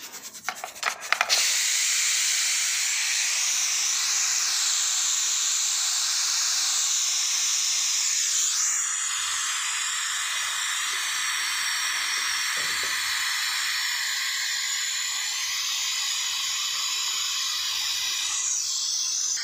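Pressure cooker venting steam in a steady hiss as its whistle weight is lifted with a steel spoon to release the pressure before opening. A few metal clicks of the spoon against the weight come first, and the hiss eases slightly about eight or nine seconds in.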